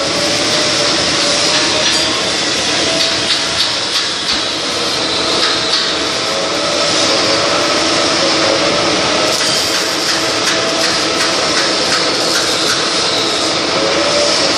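Milling machine running an end mill into a metal fitting held on a rotary table, cutting a flat of a hexagon: a steady cutting noise with a wavering whine and light ticks now and then.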